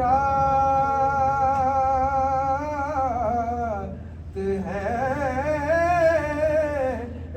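A solo voice singing two long, wordless held notes with a wavering vibrato, the unaccompanied opening of a devotional naat.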